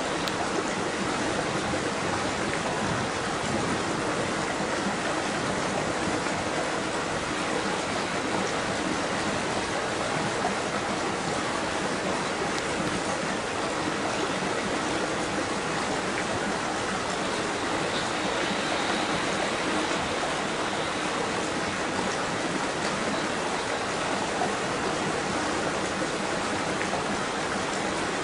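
Rushing water, running steadily with an even hiss and no swells or breaks.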